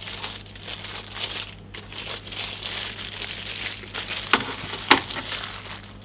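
Clear plastic wrapping crinkling as a keyboard wrist rest is handled and pulled out of its sleeve, with two sharp clicks about half a second apart, some two thirds of the way through.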